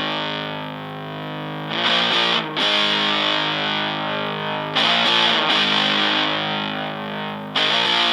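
Fuzzed electric guitar chords from a Fender Stratocaster played through a germanium Fuzz Face–style fuzz pedal into a Fender Blues Junior tube amp. A chord rings out and is struck again three times, each time letting it sustain.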